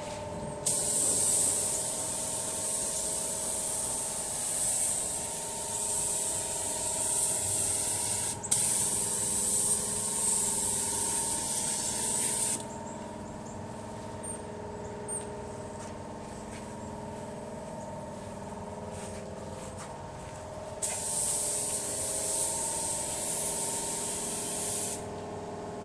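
Paint spray gun hissing as feather fill primer is sprayed. First comes a long pass of about twelve seconds with a brief break partway, then a pause, then a shorter pass of about four seconds near the end. A steady faint hum runs underneath.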